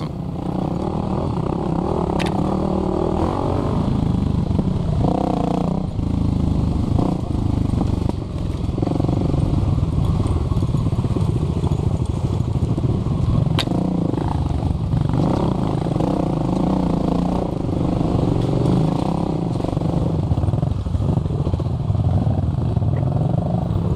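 Kawasaki KLX300 dirt bike's single-cylinder four-stroke engine running under constant throttle changes on a rough trail, rising and falling with the rider's speed, with a couple of sharp clicks from the bike over the ground.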